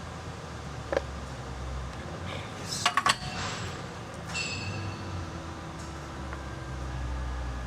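Metal parts clinking and knocking together as they are handled and set in a welding fixture: a click about a second in, a loud cluster of clinks near three seconds, then a short metallic ring that dies away, over a steady low hum of shop equipment.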